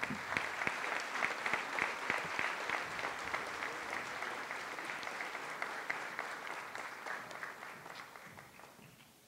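An audience and the people on stage applauding, many hands clapping together; the applause dies away over the last couple of seconds.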